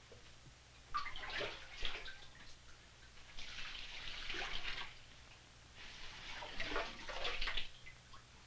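Rice and water sloshing and splashing in a wok as a wooden-handled ladle stirs and scoops through it, in three spells of a second or so each.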